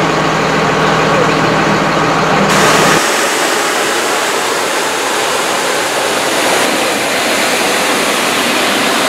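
An engine idling with a steady hum for about three seconds, then an abrupt switch to a loud, steady rushing noise.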